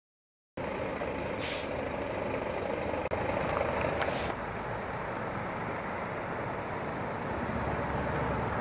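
Heavy truck engine running steadily close by, with two short bursts of air hiss from its air brakes, the first about a second and a half in, the second, longer, about four seconds in. The sound starts abruptly about half a second in.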